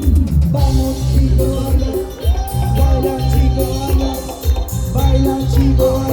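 Live band playing tropical Latin dance music: a steady bass and drum beat under held melodic lines.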